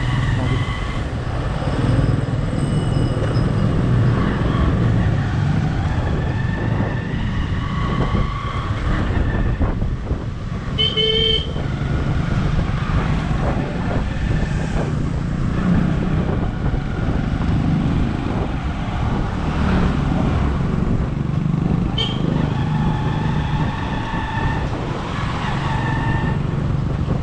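Steady engine and wind rumble of a motorcycle ride through traffic, with vehicle horns tooting now and then, the clearest a short toot about eleven seconds in and another about twenty-two seconds in.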